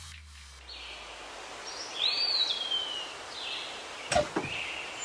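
Birds chirping over steady outdoor background noise, with short high calls and one call that rises and then falls about two seconds in. A single sharp click sounds about four seconds in.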